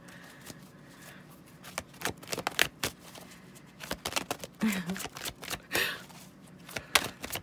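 A deck of oracle cards being shuffled by hand: a rapid, irregular patter of card edges clicking and slapping together, starting a couple of seconds in after a quiet moment.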